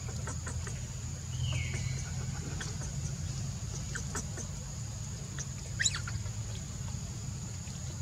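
A few short, high-pitched animal chirps. One falls in pitch about one and a half seconds in, and the loudest rises sharply just before six seconds. Under them run a steady low rumble and a constant high hiss.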